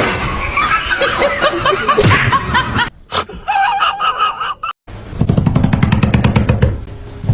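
Snickering laughter for the first few seconds, then a short quieter stretch. After a sudden cut, music with a rapid, even beat.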